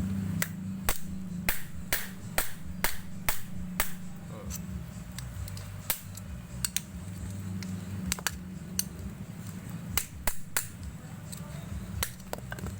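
Sharp metallic taps and knocks on a washing-machine motor's housing as it is worked open: a quick run of about two strikes a second for the first four seconds, then scattered single and double knocks.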